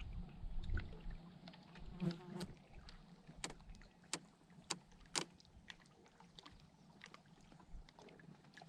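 Faint, irregular sharp clicks and taps, a dozen or more, the loudest in a cluster about midway, over a low steady hum.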